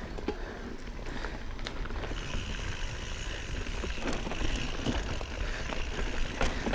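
Mountain bike riding down a dirt forest trail: tyres rolling over dirt with wind on the microphone, and scattered rattles and knocks from the bike over bumps.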